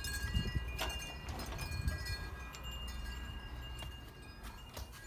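Wind chimes ringing in scattered, overlapping high tones that thin out toward the end, under a low rumble, with a knock about a second in and a click near the end as a glass storm door is passed through.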